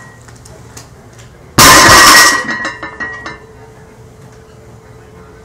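Loaded barbell dropped onto the floor after a one-handed deadlift: one loud metal crash, the iron plates clanging and ringing, then rattling to a stop within about a second and a half.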